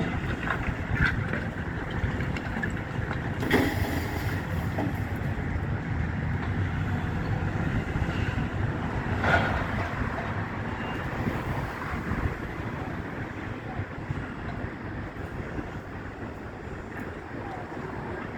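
Demolition excavator working over a steady low rumble of engine and wind, with two sharp knocks or crashes of debris, about 3.5 and 9 seconds in.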